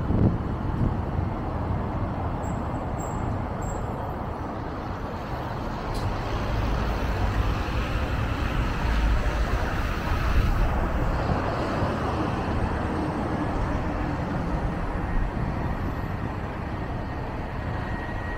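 Car driving through city traffic: steady road and traffic noise with a low rumble, swelling slightly about ten seconds in.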